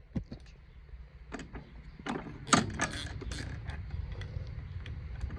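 Metal clicks and clanks of hand tools and parts being handled on a John Deere 14T baler's knotter, scattered at first with one sharp clank about two and a half seconds in, then quicker clicking near the end, over a low steady rumble.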